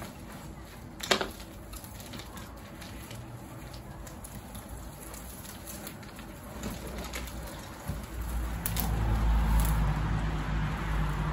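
Soil and roots rustling and crumbling as a tomato plant's root ball is worked out of a plastic pot, with small scattered clicks and one sharper click about a second in. From about eight seconds a low rumble swells up and dominates.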